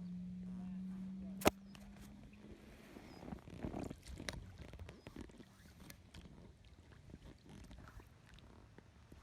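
Wind buffeting the microphone in uneven low rumbles, with a steady buzzing hum that fades out about two and a half seconds in, a sharp click about a second and a half in, and scattered small knocks and clicks.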